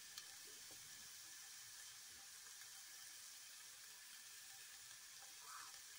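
Near silence, with a faint steady sizzle of spinach frying in oil in the pot.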